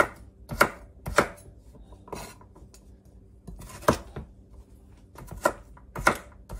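Chef's knife chopping carrots on a wooden cutting board: about seven sharp chops at uneven intervals, each blade striking through into the board.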